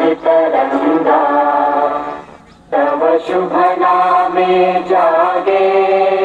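Recorded choir singing an anthem in long held phrases, with one short break about two and a half seconds in.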